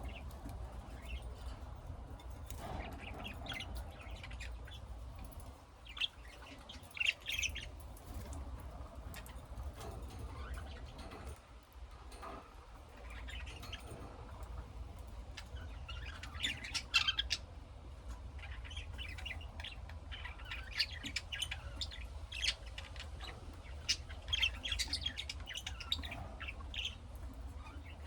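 Pet lovebirds chirping and squawking in short, shrill bursts, loudest in clusters about 6, 16 and 24 seconds in, over a steady low hum.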